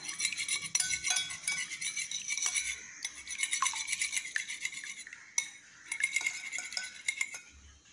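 Wire balloon whisk beating raw eggs in a glass bowl: a fast, continuous clatter of light clicks as the wires strike the glass, thinning out and stopping near the end.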